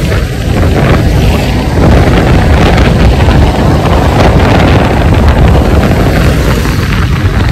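Wind buffeting the microphone on a moving scooter: a loud, uneven rumble that covers any engine or road sound.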